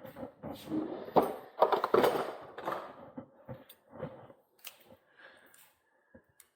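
Hands working on a bicycle at the workbench: a busy run of clicks, rustles and knocks for the first three seconds, then a few isolated sharp clicks.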